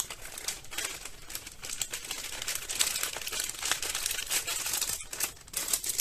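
Thin clear plastic bags crinkling as they are handled and unpacked: a busy run of crackles with a brief lull about five seconds in.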